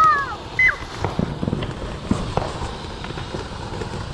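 Several ground fountain fireworks spraying sparks with a steady hiss, with a few sharp pops in the first couple of seconds. A brief high-pitched squeal falls away right at the start, and another short one comes about half a second in.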